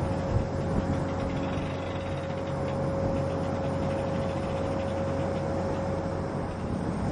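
Ship's deck machinery running steadily: a low hum with a steady whine held over it that fades out near the end.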